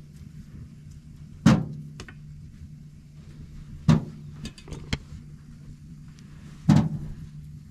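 Three loud knocks about two and a half seconds apart, with a few lighter clicks between the second and third, over a steady low hum.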